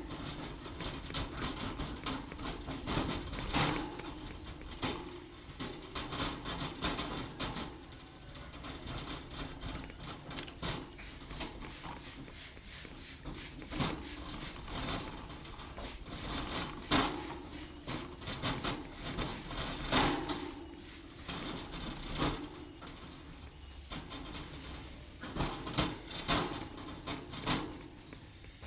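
Irregular light clicks and knocks, some louder than others, over a faint low steady hum.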